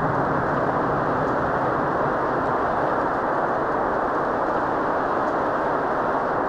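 A loud, steady rush of noise with no pitch in it: a sound-design effect. It holds level, and near the end its hiss thins out.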